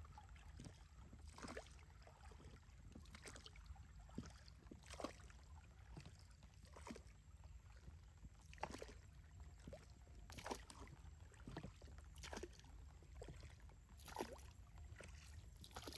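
Faint paddle strokes in water from a small boat, a short splash every second or two.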